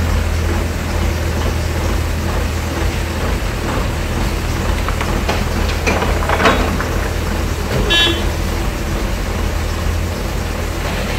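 Diesel engine of a Volvo EW60C wheeled excavator running steadily during demolition work, with scattered knocks and clatter about five to six seconds in and a brief high-pitched tone about eight seconds in.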